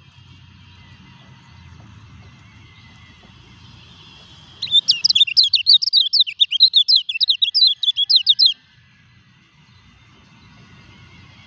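Kecial kuning white-eye singing a quick burst of high, twittering notes, about six a second, which starts near the middle and lasts about four seconds; a faint low rumble lies under it before and after.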